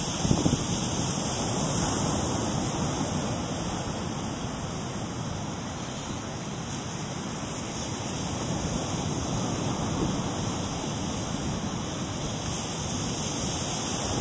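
Steady wash of ocean surf on the beach, swelling and easing slowly, with wind noise on the microphone.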